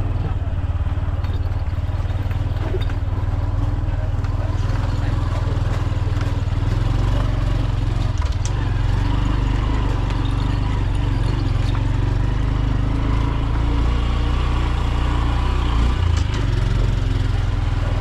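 A small motorcycle engine running steadily at low speed, its low hum unbroken throughout.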